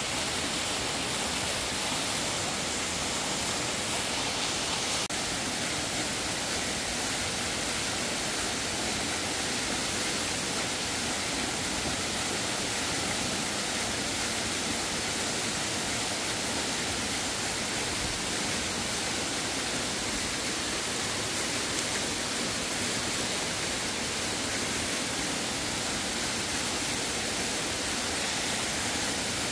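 Steady, even rush of water.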